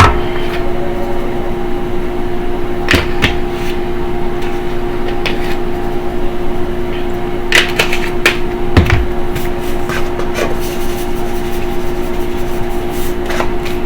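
A steady kitchen appliance hum, with a few scattered knocks and clinks from the chicken being mixed with its seasoning in a bowl.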